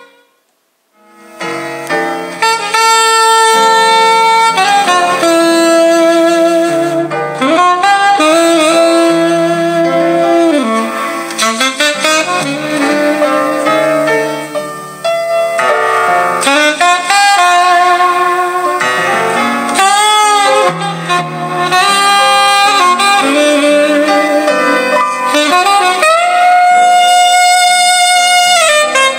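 Saxophone jazz played from a cassette through a Marantz PM326 boombox's speakers, a held, wavering melody line over a bass part. The music cuts out for about a second near the start, then comes back.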